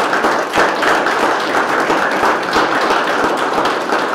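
A small group of people applauding: dense, steady hand-clapping.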